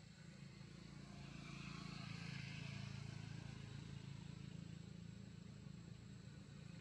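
A faint, steady low hum with some hiss, swelling a little about two seconds in.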